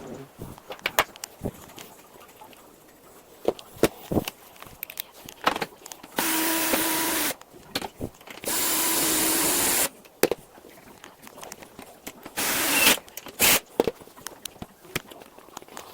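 Power drill running in four bursts of about half a second to a second and a half each, with a steady motor whine. Clicks and knocks of tools and parts being handled come between the bursts.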